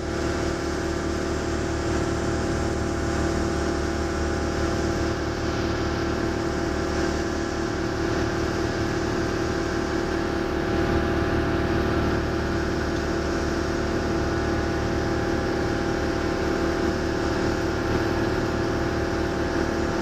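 The engine of a Genie Z135/70 boom lift running at a steady speed, a constant hum with a steady mid-pitched tone, while the boom and basket are operated.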